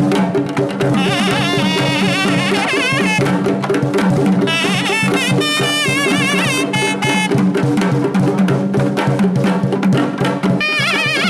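Tamil temple procession music: a nadaswaram-style reed pipe playing a wavering, ornamented melody over a steady held drone, with a thavil barrel drum beating.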